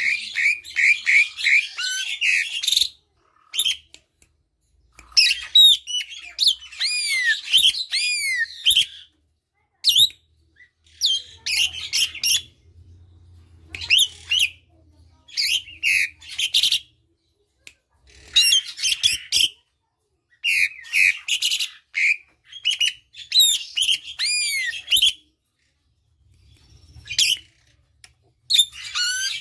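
Asian pied starling singing close to the microphone: phrases of fast chirps, squawks and curved, whistled notes, each a second or two long, broken by short pauses.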